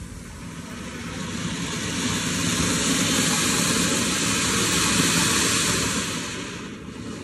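A ground fountain firework spraying sparks with a steady loud hiss that builds over the first two seconds and dies away near the end.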